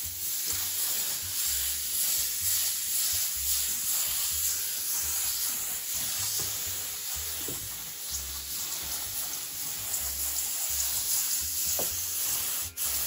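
Compressed-air paint spray gun hissing steadily as it sprays primer.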